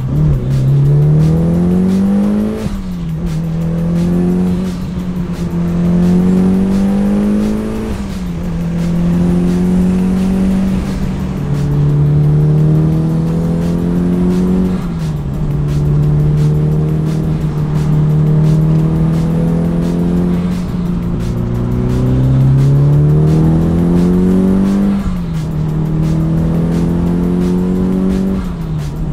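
Mitsubishi Lancer Evolution's turbocharged 4G63 four-cylinder engine heard from inside the cabin, pulling through the gears. The engine note climbs in pitch over a few seconds and drops sharply at each upshift, several times, with a few stretches held at a steady note in between.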